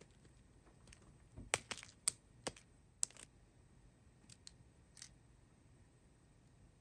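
A scattering of light, sharp clicks and ticks from small plastic bags of round resin diamond-painting drills being handled, with most of them about 1.5 to 3 seconds in and a few fainter ones near 5 seconds.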